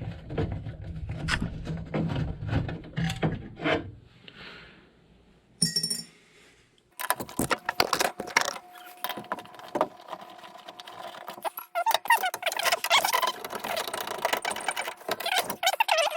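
Metal parts of a furnace exhaust blower clicking, clinking and rattling as it is taken apart by hand. A low hum sits under the first few seconds, and from about seven seconds in the clicking and rattling turn dense and busy.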